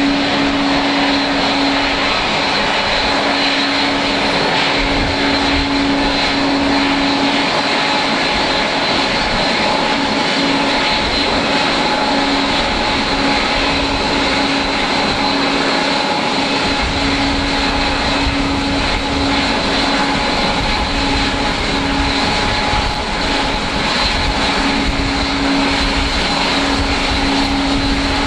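Boeing 777-200's twin turbofan jet engines running at taxi power: a steady rush with a constant whine. A low rumble strengthens about halfway through as the airliner comes close, turning in to its stand.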